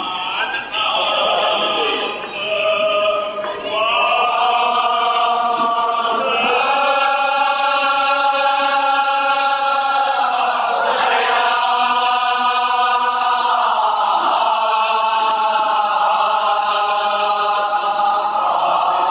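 A group of mourners chanting a Kashmiri marsiya, a Muharram elegy, together, with long drawn-out held notes.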